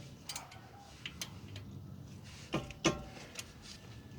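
Scattered light metallic clicks and clinks of hand tools being handled, with two sharper ringing clinks close together between two and a half and three seconds in, over a faint low hum.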